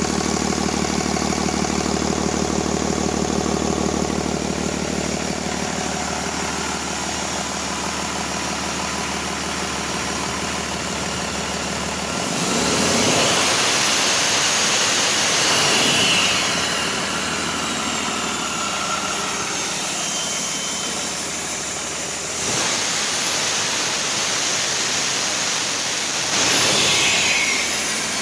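Cummins ISB 6.7 L inline-six turbodiesel on a test stand, idling, then raised in speed twice; each time a high turbocharger whine rises, holds and falls away as the engine drops back.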